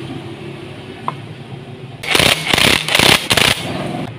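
Metal-on-metal scraping and clatter as a Yamaha Vixion's alternator flywheel rotor is fitted by hand onto the crankshaft, with a small click about a second in and a loud grating stretch of about a second and a half in the middle.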